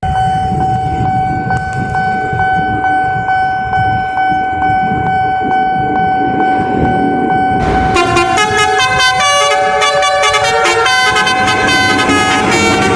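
A steady high tone over a low vehicle rumble. About eight seconds in, a multi-tone 'telolet' horn starts playing a quick, changing melody over it.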